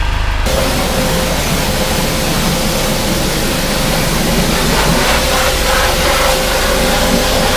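Pressure-washer lance blasting water onto a car's alloy wheel: a loud, steady hiss of spray with a constant hum underneath, starting about half a second in.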